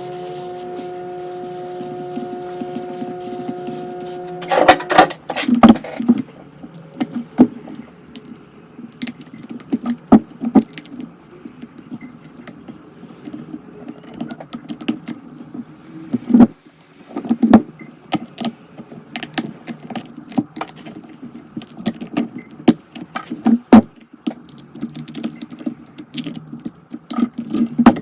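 A steady electrical hum for about the first four and a half seconds, then many irregular clicks, taps and scrapes of tools on glass and the phone's frame as the cracked back glass of an iPhone 13 Pro Max is worked loose and picked off.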